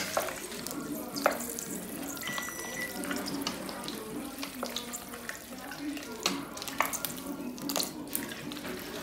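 Wooden spoon stirring macaroni in a stainless steel pot, with a few sharp knocks of the spoon against the pot over a steady hiss.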